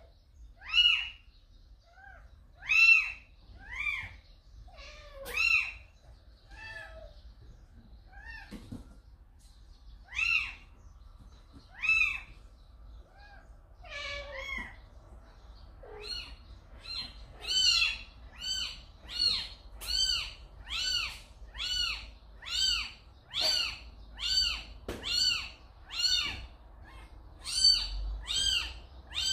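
A very young kitten crying for its mother: short, high-pitched meows, each rising and then falling. They come singly with pauses at first, then from about halfway through in a steady run of about one and a half cries a second.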